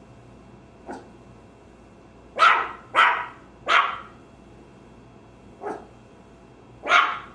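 Puppy barking: a faint bark, then three loud barks in quick succession, another faint bark, and one more loud bark near the end.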